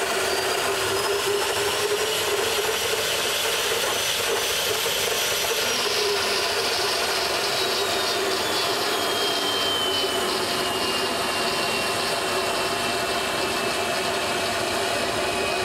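Home-built propane-fired gas turbine jet engine, made from a Buick Grand National turbocharger with a Harley muffler as the combustion chamber, running with a loud steady rushing roar. A high turbine whine rises over the first few seconds, then slowly falls in pitch.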